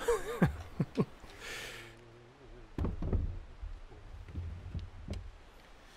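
Folding wooden chair knocking and scraping on a wooden deck as it is pulled out and sat in at a small wooden table. A cluster of knocks comes about three seconds in, with a few lighter ones near the end.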